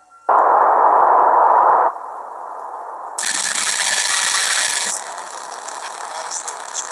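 Harsh, distorted static-like noise from a VHS horror animation soundtrack: a loud burst for about a second and a half, then a lower rough noise, with a bright hiss laid over it for about two seconds from about three seconds in.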